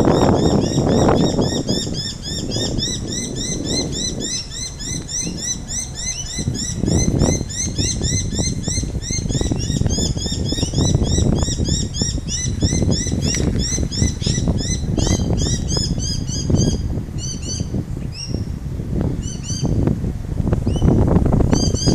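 A flock of small birds chirping together, a dense stream of short, rapidly repeated rising notes that thins to scattered calls in the second half. A low rumbling noise runs underneath, swelling at times and loudest near the end.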